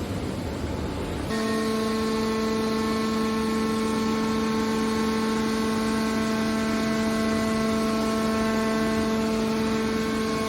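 Hydraulic metal press baler running: a rough rumble that, about a second in, turns into a steady, even machine hum on one fixed pitch.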